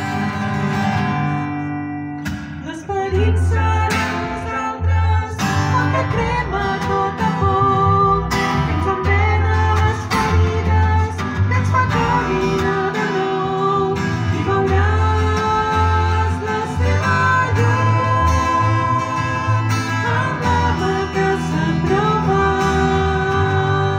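Live music: guitar-accompanied song with a woman singing, a held chord dying away about two seconds in before the band comes back in with a steady low bass line.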